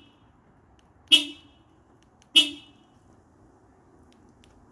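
Honda Civic's horn chirping twice, short and sharp, about a second and a quarter apart, as the car locks from the key fob remote: the sign that the fob works on its new battery.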